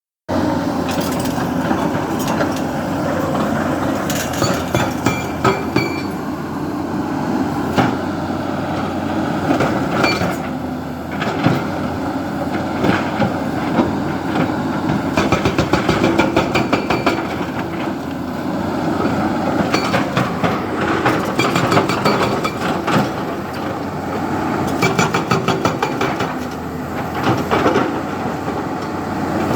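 JCB 3DX backhoe loader's diesel engine running steadily as the machine works, with scattered clanks and several stretches of rapid, even rattling ticks.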